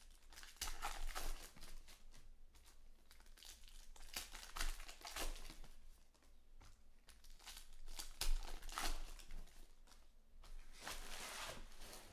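Trading-card pack wrappers being torn open and crinkled by hand, in several bursts of rustling with short pauses between.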